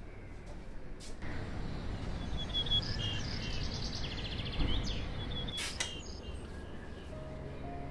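Outdoor morning background: a steady low hum that swells about a second in, with a few birds chirping briefly in the middle.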